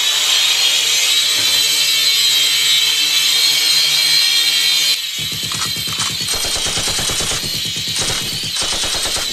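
Syma X5SC toy quadcopter's small motors and propellers whining at a steady high pitch. About five seconds in, a rapid machine-gun-fire sound effect starts and runs on over the whine.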